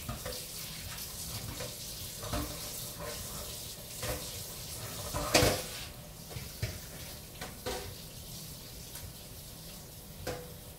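Kitchen tap running into a sink while dishes are washed, with scattered small knocks and one sharp clatter about five and a half seconds in.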